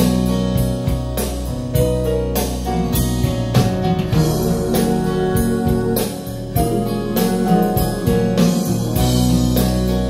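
Recorded music with guitar and a steady drum beat playing through a pair of ProAc D20r floor-standing loudspeakers.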